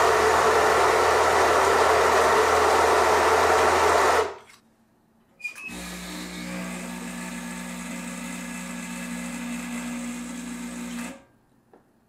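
Baratza Vario burr grinder, fitted with new burrs, grinding espresso for about four seconds and then stopping. After a short gap, the Rocket Giotto espresso machine's pump runs with a steady hum for about five seconds while it pushes water through the portafilter, then switches off.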